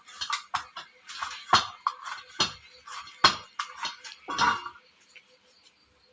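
Puri dough being handled and kneaded in a bowl: a series of irregular thumps and knocks for about four and a half seconds, then it stops.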